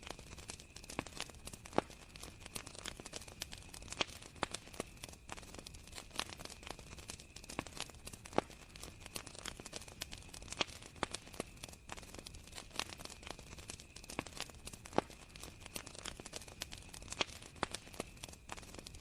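Campfire crackling, with irregular sharp pops and snaps several times a second over a low hiss, and crickets chirring steadily underneath.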